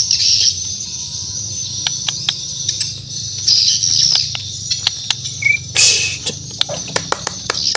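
Bornean shama (murai batu) singing: a few bursts of rapid, high twittering notes with many short, sharp ticks between them and a brief whistled note about five and a half seconds in.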